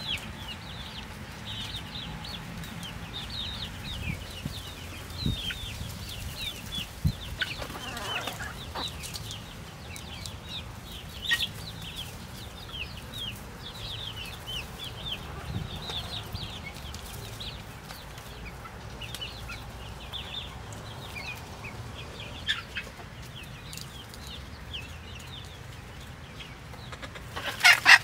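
Small flock of young hens clucking and chirping as they forage, with a steady run of short high chirps. A louder, sharp sound stands out just before the end.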